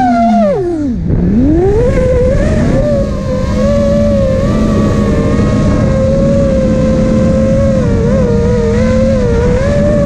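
FPV racing quadcopter's brushless motors and propellers whining. The pitch drops sharply about half a second in and climbs back within a second as the throttle is cut and brought back up, then holds steady with small wobbles.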